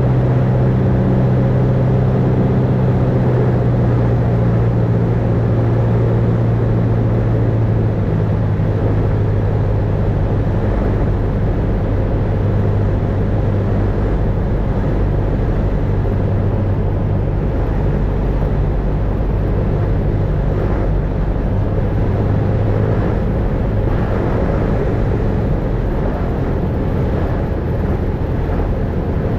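Cessna 172's piston engine and propeller running steadily, heard as a loud drone inside the cockpit while the plane descends on final approach. The engine note dips slightly about eight seconds in.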